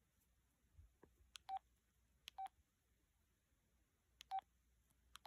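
LG LX1200 flip phone keypad beeps: four short, faint key-press tones at uneven intervals, each just after a soft click of the button, as the keys are pressed to move through the menu.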